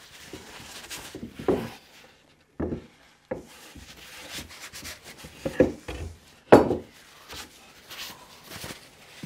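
Freshly glued wooden assembly being turned and set down on a wooden workbench: several separate knocks of wood on wood, the loudest about six and a half seconds in. Between them, soft rubbing as a cloth wipes off squeezed-out glue.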